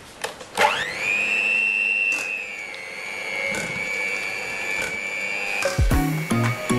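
Miyako electric hand mixer switched on at its lowest speed: a click, then the motor's whine rises quickly and holds steady as the beaters work a bowl of white vegetable shortening.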